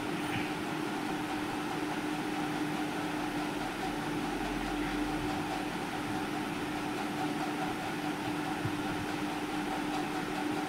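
Batter-coated chicken pieces deep-frying in hot oil: a steady sizzle over a constant hum.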